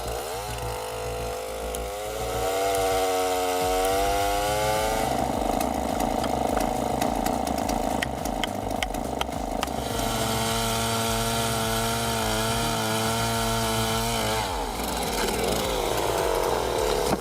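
Two-stroke chainsaw revving up and running at high speed with a steady pitched whine. The pitch roughens and wavers in the middle, then steadies again, and the saw drops off near the end.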